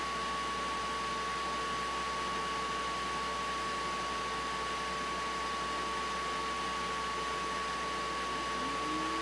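Steady hiss with a constant high-pitched tone running through it; near the end a short, low tone rises and then holds for about a second.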